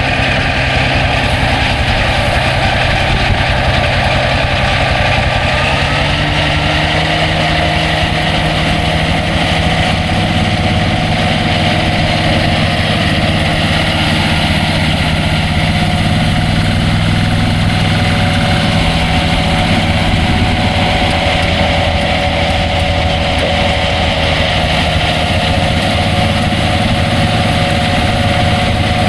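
Tractor engine running steadily under load while pulling a disc mower through hay, with the whirr of the spinning mower discs; the engine note rises a step about six seconds in and then holds.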